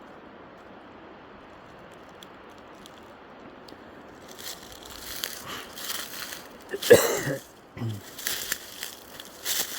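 A faint steady hiss at first, then footsteps crunching through dry leaves and brush from about four seconds in, with one louder scraping rustle about seven seconds in.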